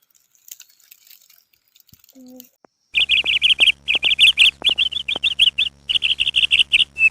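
A songbird singing in fast, rapidly repeated trilled phrases, starting about three seconds in and going on in short bursts with brief pauses between them.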